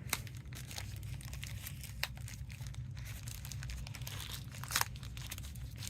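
Packaging being handled during an unboxing: light crinkling and rustling with a few sharp clicks, and a louder crinkle a little before the end, over a steady low hum.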